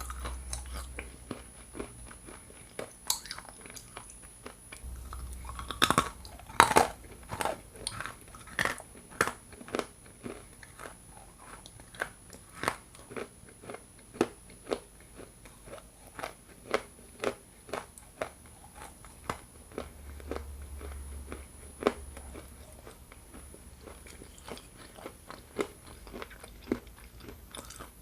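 Biting and chewing hard, dry lumps of Ural edible clay, with crisp crunches. A loud cluster of bites comes about six to seven seconds in, then the chewing crunches run on evenly at about two a second.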